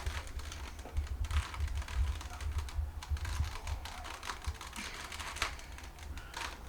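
Rubik's cube being twisted fast: the plastic layers clicking and clacking in quick, irregular turns, over low handling rumble.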